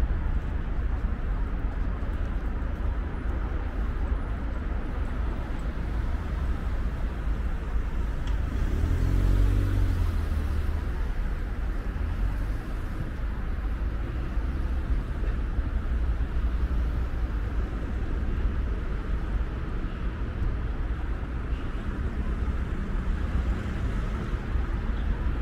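City street traffic rumbling steadily, with a motor vehicle passing close by about nine seconds in.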